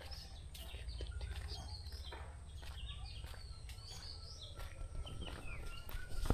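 Small birds chirping and calling all through, many short overlapping notes, some rising and some falling, over a low steady rumble.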